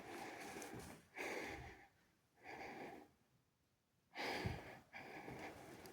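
A person's breathing close to the microphone, a few soft breaths with silent pauses between them.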